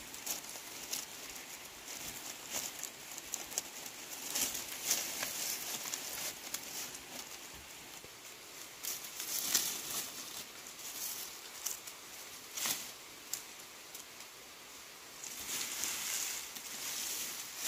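Dry sticks, stalks and dead leaves rustling and crackling as they are handled and bundled, with irregular crisp snaps and rustles that come and go, louder in a few clusters.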